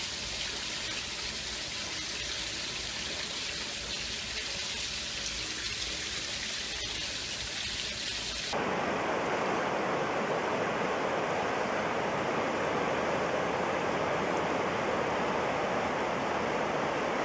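Water overflowing from a wall urinal, running and spattering onto a tiled floor as a steady hiss. About eight and a half seconds in it cuts to a slightly louder, steady rushing noise from a flooded river.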